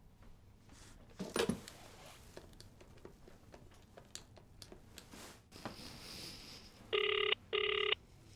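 A loud rustle of handling about a second in and scattered small clicks, then near the end a telephone ringing tone: two short rings close together, the double ring of a call waiting to be answered.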